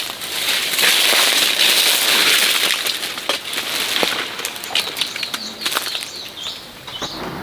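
Leafy tree branches rustling and crackling as they are pulled down and handled to pick fruit, loudest in the first half and thinning out, with a few bird chirps near the end.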